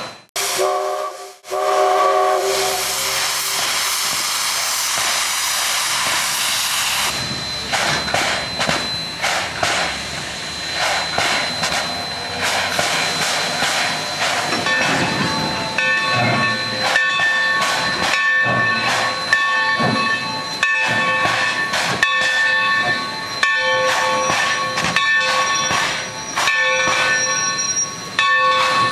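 Mikado-type steam locomotive pulling away: loud hissing steam at first, then its exhaust chuffing. From about halfway on, its bell rings over and over.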